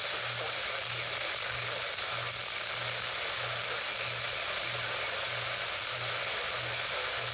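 Steady static hiss from a radio receiver with no programme on it, with a low hum that pulses on and off about one and a half to two times a second.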